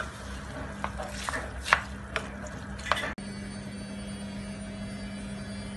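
Wooden spoon stirring chopped broad beans, mince and tomato sauce in a sizzling stainless steel pan, with several sharp knocks of the spoon against the pan. The loudest knock comes in the middle. About three seconds in, the sizzle and stirring cut off abruptly, leaving a steady low hum.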